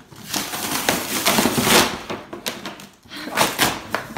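A large cardboard box being pulled open by hand: cardboard scraping and rustling in two noisy stretches, with a brief pause about three seconds in.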